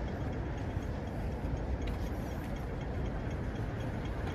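Steady low rumble of city or transit background noise, with a faint quick ticking over it.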